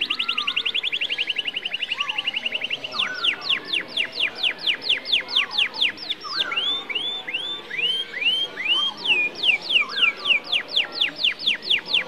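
Domestic canary singing: rapid trills of repeated whistled notes sweeping downward, very fast at first, slowing in the middle into a phrase of upward-curling notes, then speeding up again near the end, with a few lower chirps underneath.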